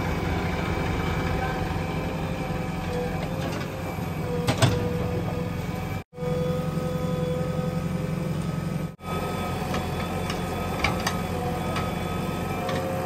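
JCB 3DX Plus backhoe loader's diesel engine running steadily under load with a steady whine, a tractor engine running alongside. A sharp knock about four and a half seconds in, with a few lighter clicks later, and the sound cuts out briefly twice.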